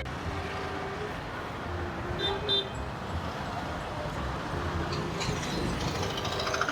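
Street traffic: a steady rumble of passing vehicles with horns honking several times, each held for about a second, and two short high beeps about two and a half seconds in.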